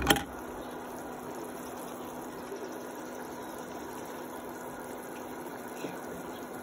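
Chicken and malunggay-leaf soup boiling in a stainless steel pot: a steady bubbling hiss with a faint steady hum under it. A single sharp knock comes right at the start.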